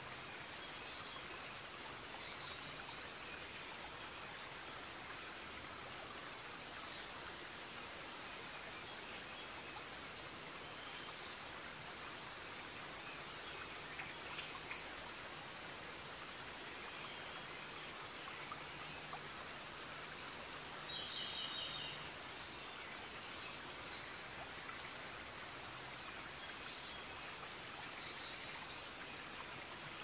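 Forest ambience: a steady hiss of running water under birds chirping, with short high calls in small clusters every few seconds.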